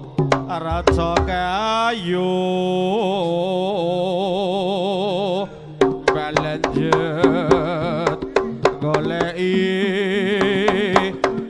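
Live Javanese jaranan ensemble music: a wavering melodic line over steady low tones, punctuated by frequent sharp drum strokes, with a short break about five and a half seconds in.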